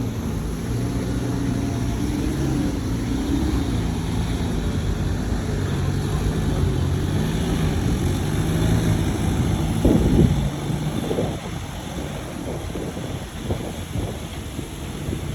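Heavy diesel engine of a bulldozer running, its pitch rising and falling with the throttle. It surges louder about ten seconds in, then eases off.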